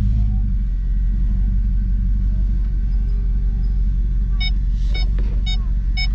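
Steady low rumble of a vehicle heard from inside its cabin, engine and road noise together. About four and a half seconds in, a short electronic chime starts beeping about twice a second.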